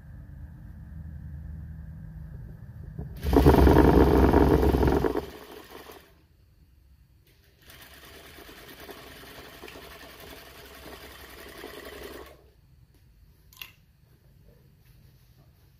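Juki industrial lockstitch sewing machine stitching fabric in two runs: a loud fast run about three seconds in lasting some two seconds, then a quieter, longer run from about eight to twelve seconds. A low hum comes before the first run, and a single short click sounds near the end.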